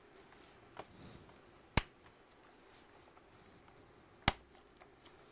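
Sharp plastic clicks from prying at a laptop's clipped-in keyboard bezel: a faint click about a second in, then two loud ones about two and a half seconds apart.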